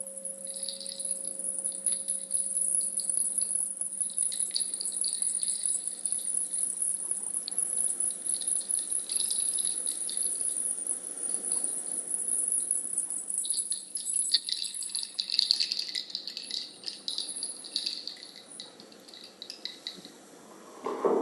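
A shaken percussion rattle played continuously in a sound-healing session, a dense patter of small grains or beads that swells again in the second half before thinning out near the end. A steady ringing tone fades away in the first few seconds.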